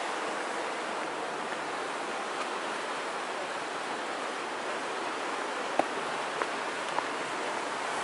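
Steady wash of ocean surf, with a few faint clicks about six and seven seconds in.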